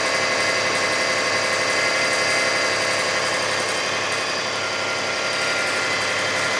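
2005 Kia Sedona's 3.5-litre V6 idling steadily as it warms up, with a steady noise under it that appeared only after the timing belt, tensioners, idler and water pump were replaced.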